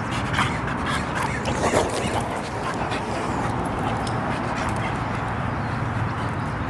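A boxer dog making a few short vocal sounds in the first two seconds, over steady background noise.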